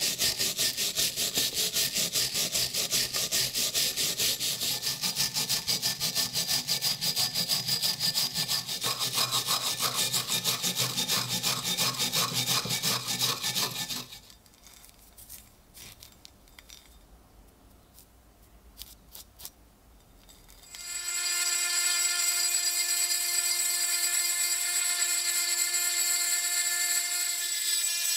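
Hand wire brush scrubbing rust off an old iron axe head in rapid, even back-and-forth strokes. About fourteen seconds in the scrubbing stops and it goes quiet but for a few light clicks; some seconds later a small rotary tool with an abrasive cone bit starts up and runs with a steady high whine, grinding a bare strip through the rust.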